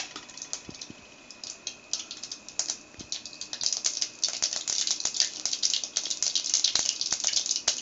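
Mustard seeds popping and spluttering in hot ghee in a kadai: a rapid crackle of small pops that grows much denser about halfway through. It is the tempering stage, with the seeds bursting in the hot fat.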